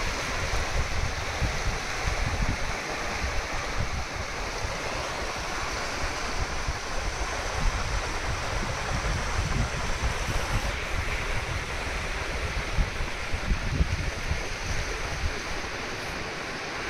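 Wind buffeting the microphone in uneven gusts over a steady rushing hiss.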